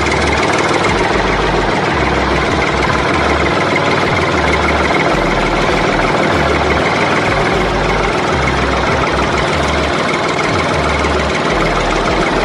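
Tractor engine sound running steadily at idle, a dense rumble with an uneven low throb.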